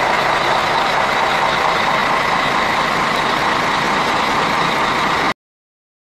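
A heavy bus running: a steady, even rushing noise that cuts off suddenly about a second before the end.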